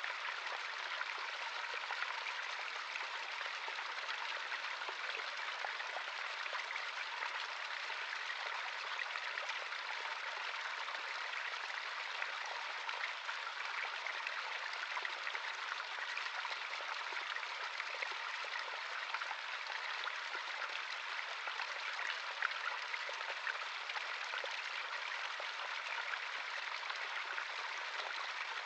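Small stream of running water, a steady babbling hiss with little splashes and drips scattered through it.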